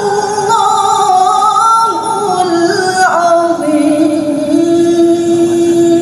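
A woman reciting the Qur'an in the melodic tilawah style through a microphone. Her voice moves through ornamented phrases that step downward in pitch, then settles into a long held low note about two-thirds of the way through.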